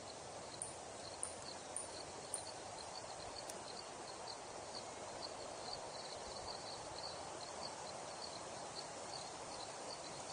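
Outdoor nature ambience: a steady hiss with many short, faint high chirps scattered through it. Four light ticks come about half a second apart in the first few seconds.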